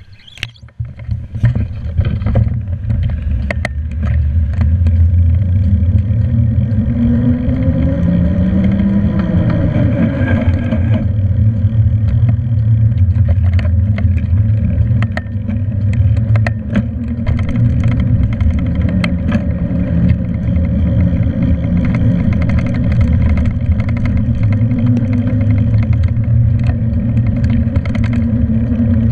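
Wind buffeting and road rumble on a handlebar-mounted camera's microphone while cycling, with scattered clicks and knocks from bumps in the path. A hum rises and then falls in pitch about eight seconds in.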